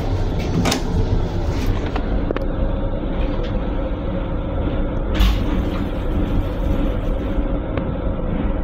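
Steady low rumble of an M7 railcar in service, heard inside its small restroom, with one sharp clunk about five seconds in.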